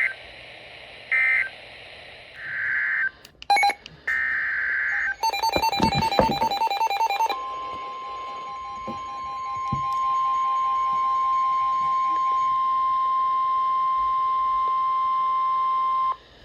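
Emergency Alert System signalling: short screeching digital data bursts of the SAME code, then a steady single-pitched alert tone, the 1050 Hz NOAA Weather Radio warning alarm, held for about nine seconds and cut off suddenly.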